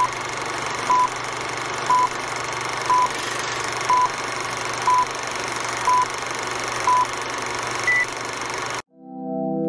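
Old-film countdown leader sound effect: short identical beeps once a second over a steady hiss and hum, ending in one higher-pitched beep at the zero. The sound then cuts off abruptly, and organ music swells in near the end.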